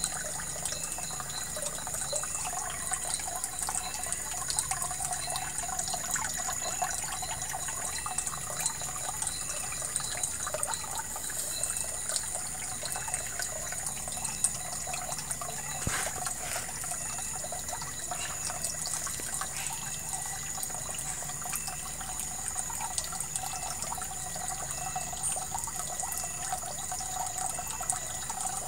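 Water running and trickling steadily, with many small splashes and drips, and a steady high-pitched whine over it.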